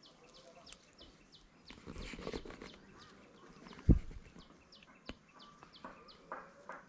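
Short high chirps of small birds scattered through the background, with some rustling and one sharp thump just before four seconds in.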